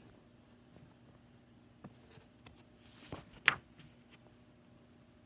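Page of a picture book being turned: a short paper swish about three seconds in, over faint room hum, with a few small handling clicks before it.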